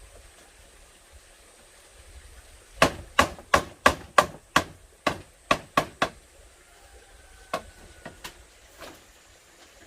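A quick run of about eleven sharp strikes on bamboo, roughly three a second, starting about three seconds in, followed by a few lighter, spaced strikes.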